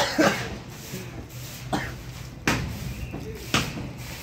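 Hands squeezing and mixing wet shredded grapefruit pulp in a steel bowl: a low rubbing squish broken by several short sharp sounds, roughly one a second.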